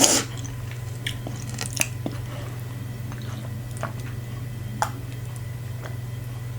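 Close-miked chewing and mouth sounds of someone eating fufu with meats and soup: scattered short wet clicks and smacks, the loudest right at the start. A steady low hum runs underneath.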